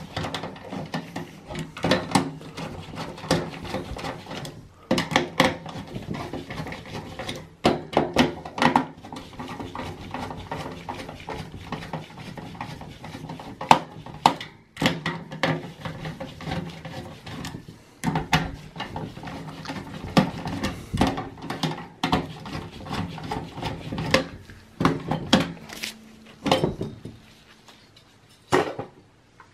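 Hand screwdriver undoing the CPU cooler heatsink's retaining screws in a desktop PC's sheet-steel case: irregular metallic clicks, taps and scrapes as the tip works the screws and metal parts knock together.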